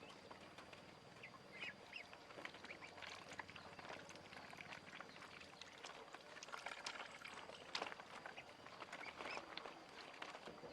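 Ducks and ducklings calling faintly, with scattered short quacks and peeps among many small clicks and taps.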